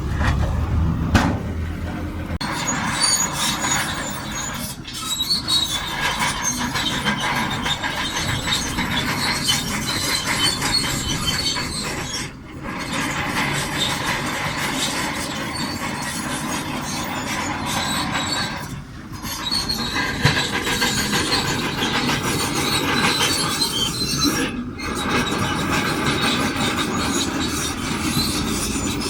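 Shantui DH17C2 crawler bulldozer working, its steel tracks squealing and clanking over the engine's running. The sound drops briefly four times, about every six seconds.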